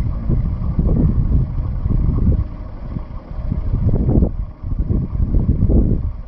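Wind buffeting the microphone: a loud, low rumble that swells and drops in irregular gusts.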